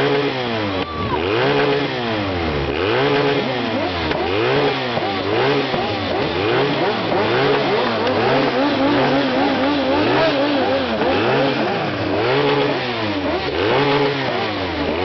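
A motorcycle engine being revved over and over in a steady rhythm, its pitch rising and falling about once a second. A second engine can be heard underneath in the middle.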